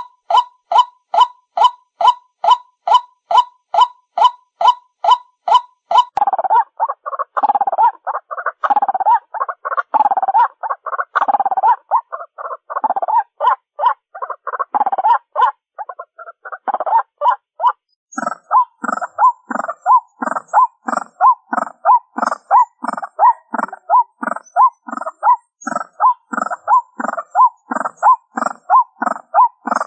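White-breasted waterhen calls: a rapid, even series of repeated 'ruak' notes at about three a second. The notes change character about six seconds in and again around eighteen seconds, with a fuller, lower part added.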